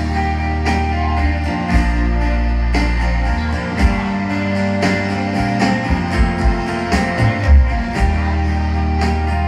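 Live country band playing an instrumental passage: strummed acoustic guitar over electric bass notes that change every second or two, with steady drum and cymbal hits.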